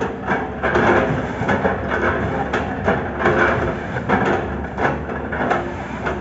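Excavator engine running under load, with irregular cracking and crunching as oil palm trunks are chopped apart.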